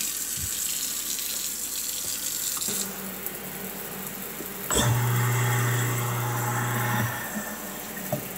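Water running from a pull-down kitchen faucet into a stainless steel sink, changing from a solid stream to spray about three seconds in. Partway through, a loud steady low mechanical hum starts with a click and stops abruptly about two seconds later.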